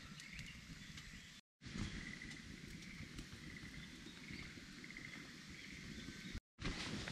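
Faint birdsong, short chirps and trills, over low outdoor rustling. The sound drops out completely twice, briefly, about a second and a half in and near the end.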